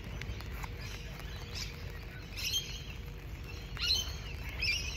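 Birds chirping in short high calls, three times in the second half, over a steady low rumble of wind and rain. A few light ticks of raindrops on an umbrella come in the first second or so.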